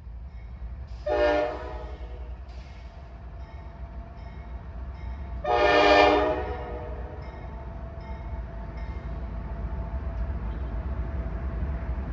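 A lone diesel locomotive running light, a helper engine, sounds its air horn twice: a short blast about a second in, then a longer, louder one around the middle. A steady low engine rumble runs underneath.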